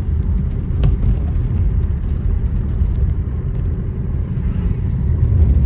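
A car heard from inside its cabin as it drives along a road: a steady low rumble of engine and tyres, with a single short click about a second in.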